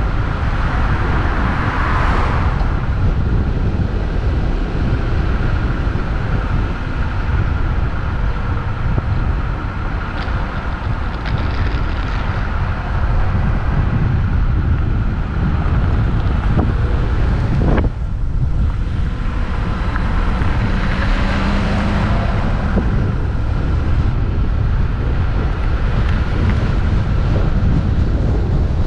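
Wind buffeting a hood-mounted camera's microphone on a moving Jeep, over steady engine and tyre noise. A brief thump comes about two-thirds of the way through.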